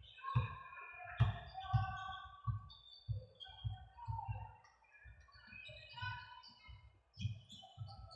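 Birds chirping and singing in short, varied notes, over irregular low thumps about two or three a second.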